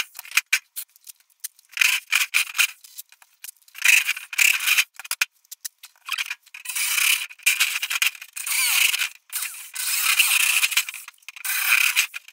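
Handheld electric drill boring holes through a thin steel sheet, in repeated bursts of a second or two with short pauses between holes, the bit grinding and scraping through the metal.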